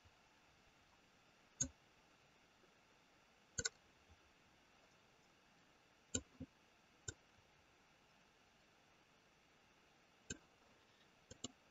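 Computer mouse button clicks, about eight short sharp clicks spaced irregularly, a couple in quick pairs, over near silence.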